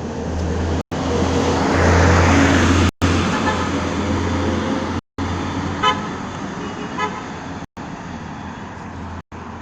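Car on the move: steady low engine and road rumble that swells about two seconds in, with two short horn toots about six and seven seconds in.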